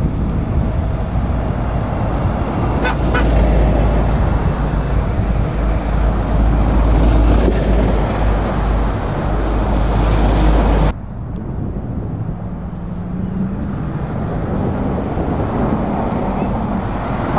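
Heavy diesel trucks driving past, a loud deep engine rumble for about eleven seconds, then cutting off abruptly to a quieter stretch of engine and traffic noise.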